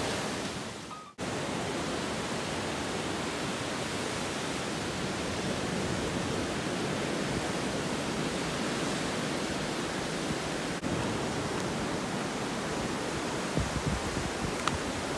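Surf breaking on a beach: a steady rushing noise that cuts in about a second in.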